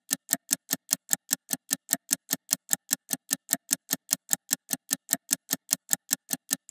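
A steady run of sharp, evenly spaced clicks, about six a second: an edited ticking sound effect.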